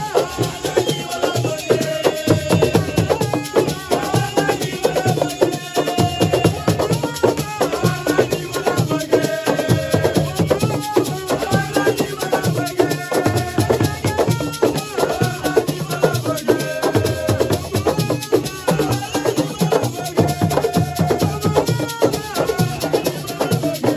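Live assiko music: singing voices over a dense, continuous percussion rhythm.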